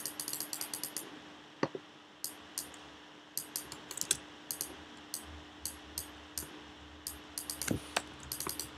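Computer keyboard keys clicking in short quick runs with pauses between them, with a few sharper single taps, over a faint steady hum.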